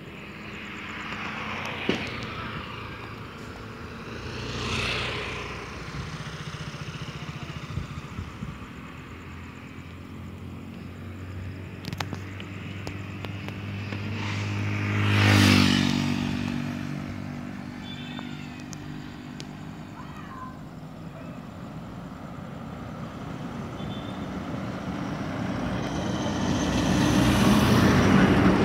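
Road traffic on a highway at night, vehicles passing one after another. The tyre and engine noise swells and fades about five seconds in, again louder with a deep engine hum about fifteen seconds in, and builds once more near the end.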